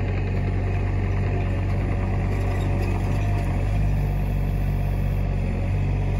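Sany SY35U mini excavator's diesel engine running steadily.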